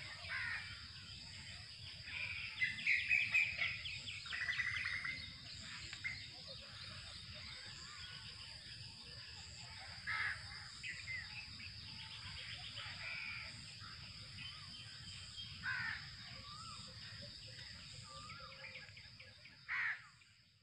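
Birds calling in the trees, with a run of loud harsh calls between about two and five seconds in and short single calls again near the middle and end. Underneath is a steady high-pitched insect drone.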